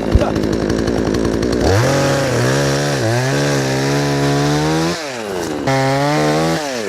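Chainsaw cutting down a tree. The engine is throttled up to a high, steady whine about two seconds in, and its pitch dips slightly as the chain bites. The throttle is let off about five seconds in, then opened again briefly before it falls back.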